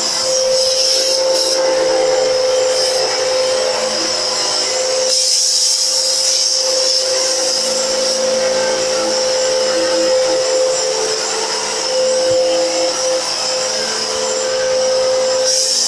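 Upright bagless vacuum cleaner running with a steady motor whine and airflow hiss as its hose wand sucks along the tile floor; the hiss grows brighter for a couple of seconds about five seconds in.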